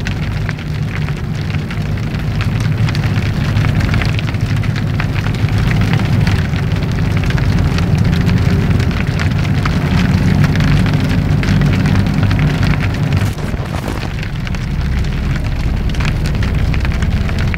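Steady rain, a dense pattering of drops, over a low rumble.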